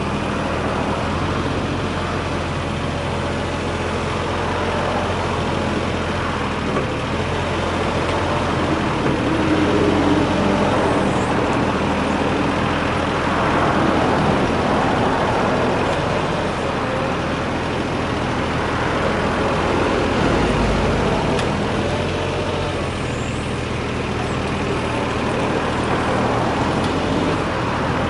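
Yanmar VIO20-1 mini excavator's diesel engine running steadily, its sound swelling and easing a few times over the stretch.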